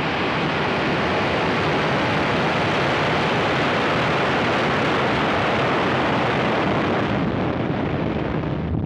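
Falcon 9 rocket lifting off, its nine Merlin 1D first-stage engines making a loud, steady roar that turns duller near the end.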